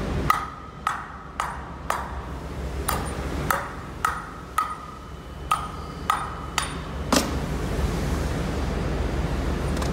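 Hammer blows on a steel mold part while the mold is knocked apart for disassembly. About a dozen ringing metallic strikes come roughly every half second, stopping about seven seconds in.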